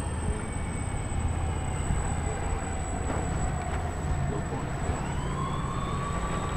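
Motors and propellers of a large radio-controlled Hughes H-4 'Spruce Goose' flying-boat model running as it skims low over the water and lands. Their tone sags slightly through the touchdown, then rises again about five seconds in as the throttle comes back up, over a thin steady high whine.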